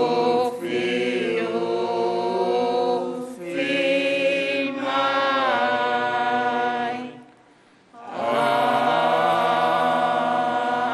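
A group of voices singing together, unaccompanied, in long held phrases like a chanted hymn. There is a short break about three seconds in and a longer pause around seven seconds.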